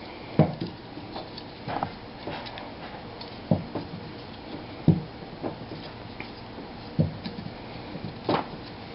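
Handling noise of a PC fan's thin multi-wire cable being twisted by hand: irregular soft clicks and rustles, a few to each couple of seconds.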